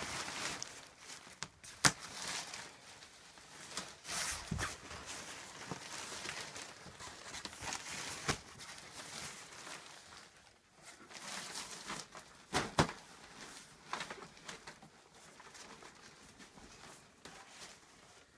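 Pop-up play tent's nylon fabric rustling and flapping as it is unfolded and set up, with a handful of sharp taps and knocks along the way.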